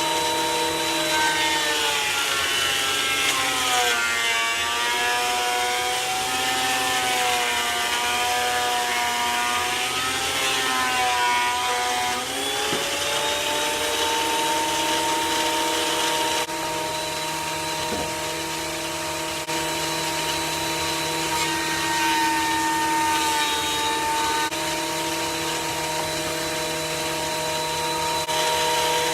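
Delta 22-540 benchtop planer running with a steady motor whine while rough-cut ash boards feed through it. For the first ten seconds or so the whine drops in pitch and the cutterhead's noise thickens as a board takes a full cut. The pitch sags again, more lightly, about two-thirds of the way through, as a board barely touching the knives passes.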